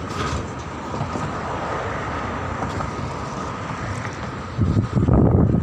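Steady noise of cars passing on a city bridge roadway; about four and a half seconds in, wind starts buffeting the microphone with a louder, gusty rumble.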